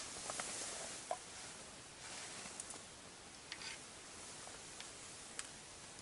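Soft rustling and a few light, sharp clicks from hands working a small ice-fishing rod and its line, over a faint steady hiss.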